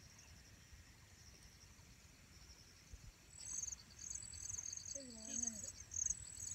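Insects chirping high and shrill in the open: a faint steady buzz, then from about halfway through, loud repeated pulses of chirping, roughly two a second.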